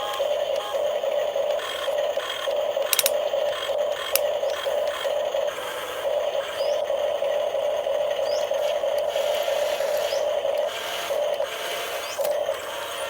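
Radio-controlled model excavator's electric motor and gearing running with a steady whine and light mechanical rattle, with two sharp clicks about three and four seconds in.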